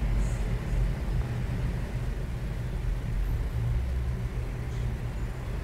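Steady low rumble of road traffic passing outside, heard through a window.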